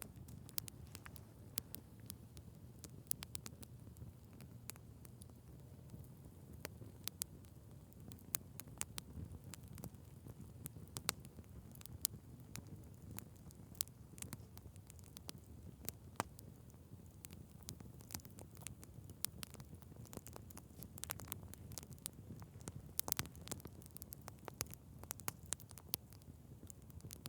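Wood fire in a fireplace crackling: sharp pops and snaps at irregular intervals over a low, steady rumble of the burning fire.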